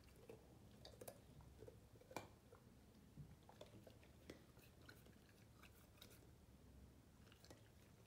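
Young Great Dane chewing a raw carrot: faint, irregular crunches and clicks, the sharpest ones in the first half.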